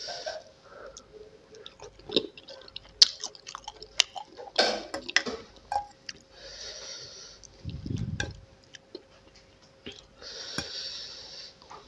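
Close-up eating sounds of spicy instant noodles: chewing, with sharp clinks of a metal spoon and fork against a glass bowl. Two hissing mouth sounds come about two-thirds of the way through and again near the end.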